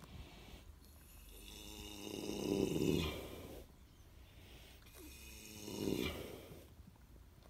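A horse snoring in a deep doze: two long, slow snores, the first swelling for about three seconds before breaking off, the second shorter, a few seconds later.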